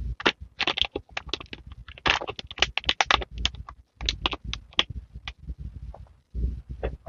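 Thin plastic pouch crinkling and crackling as it is squeezed and pulled by hand: a quick, irregular run of sharp crackles that thins out and stops about five seconds in.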